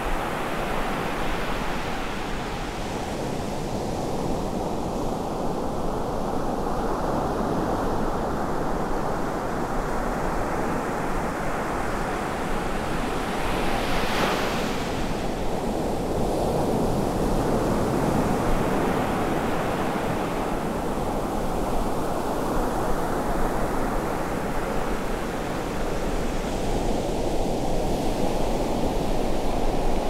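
Ocean surf breaking and washing up a sand beach, a steady wash with one louder wave crash about halfway through. Near the end the water runs in close.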